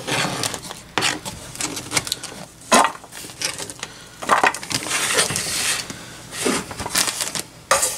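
A knife chopping a crisp, hard fennel bulb on a plastic cutting board: irregular crunchy cuts and knocks of the blade on the board.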